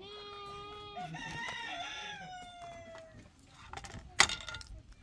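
A rooster crowing once, a single call of about three seconds that falls in pitch at the end. A sharp knock follows about four seconds in.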